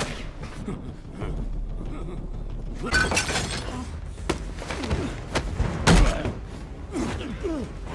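Two men scuffling: a thud about three seconds in as a head is slammed onto a wooden desk, then several more blows and thuds, the loudest about six seconds in, with grunts from the fighters.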